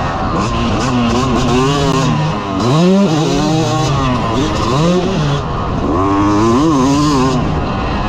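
2022 Yamaha YZ250's single-cylinder two-stroke engine under riding load, revs climbing and dropping several times as the throttle is worked through corners and shifts, with a sharp climb about three seconds in.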